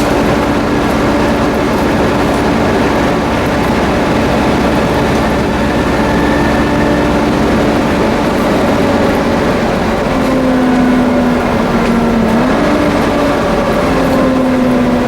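Volvo B7TL double-decker bus running under way, its six-cylinder diesel and driveline giving off a loud, vacuum-cleaner-like whine (a 'hoover'). The whine holds steady, shifts pitch about ten seconds in, then slides lower near the end.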